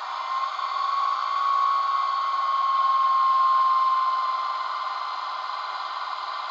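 Digital sound decoder in a model SBB Re4/4 electric locomotive playing a whining motor sound over a steady hiss through its small loudspeaker. The whine swells to its loudest about three seconds in, then eases to a lower steady level.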